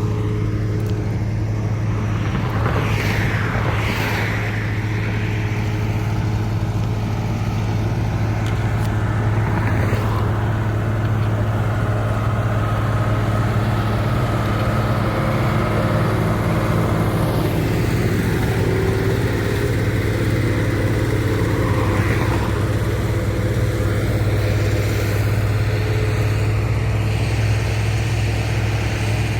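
Heavy diesel engine of asphalt paving machinery running steadily at a constant speed, a deep even hum. A few brief higher-pitched sounds rise over it about three to four seconds in and again near twenty-two seconds.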